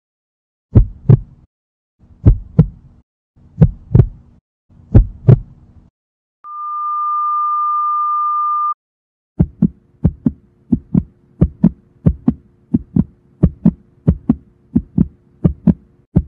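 Heartbeat sound effect: slow double thumps about once every second and a half. Then a steady high beep, like a heart monitor's flatline tone, holds for about two seconds and cuts off suddenly. The heartbeat then returns at about twice the pace.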